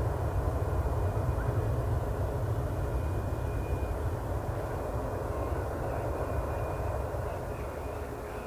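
Boeing jet airliner's engines, a low rumble that slowly fades as the aircraft moves away, with a faint steady high whine.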